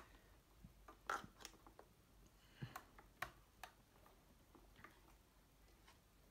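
Faint, scattered small clicks and rustles of fingers working a wire into a motorcycle helmet's padded liner, about half a dozen in a few seconds.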